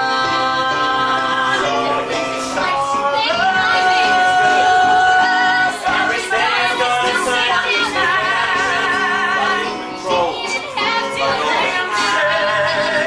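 Musical-theatre singing over instrumental accompaniment, with long held notes that waver with vibrato.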